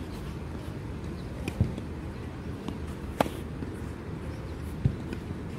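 Tennis ball struck by rackets in a forehand rally: sharp pops about one and a half seconds in and again near three seconds, then a dull ball bounce near the end.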